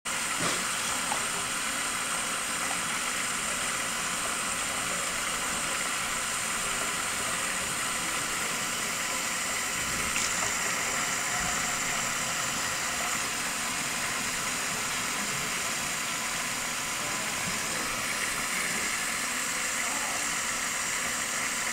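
Tap water running steadily into a sink and splashing over a hand and a wet rat, an even hiss.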